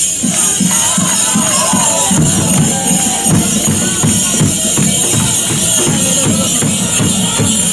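Loud music with a steady beat and a jingling, tambourine-like rhythm.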